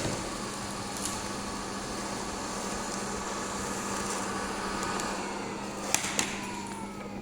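Robot vacuum running, its suction motor giving a steady whir with a faint whine. About five seconds in the whine falls in pitch, and two sharp clicks follow.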